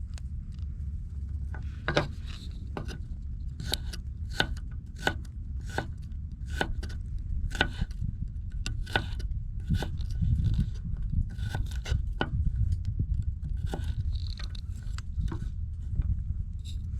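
Regular short cutting or scraping strokes, roughly one every 0.7 seconds, over a steady low rumble.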